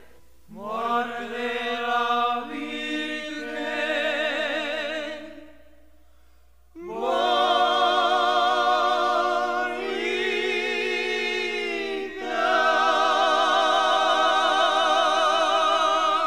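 Voices holding long notes in harmony, with vibrato and no percussion, in two long held phrases separated by a short pause about five and a half seconds in.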